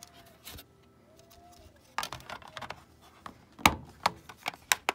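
Plastic top cover of a D-Link DIR-822 router being pressed onto its base by hand, with light rubbing and then a run of sharp clicks and knocks as the housing clips snap into place, starting about two seconds in and loudest a little past halfway.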